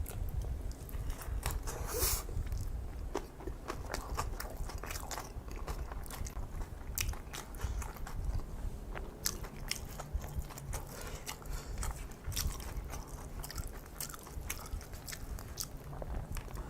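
A person chewing kimchi fried rice and kimchi close to the microphone: crunching bites and many quick, wet mouth clicks, with no pause.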